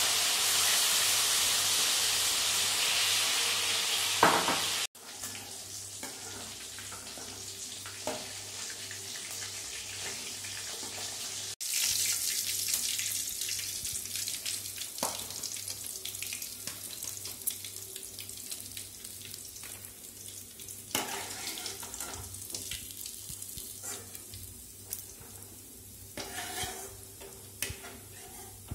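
Marinated chicken kabab pieces deep-frying in hot oil in a metal kadai: a steady sizzling hiss, loudest in the first few seconds as the pieces go into the oil, then quieter and slowly fading. The sizzle breaks off abruptly twice, and there are a few clinks of a slotted spoon against the pan.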